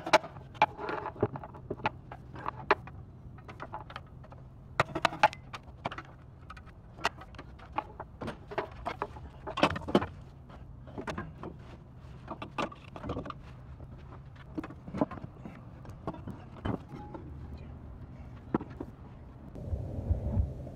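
Hand tools clicking and knocking on metal as the water pump of a Cummins ISX15 diesel is being unbolted: irregular sharp clicks, some in quick runs, over a steady low hum.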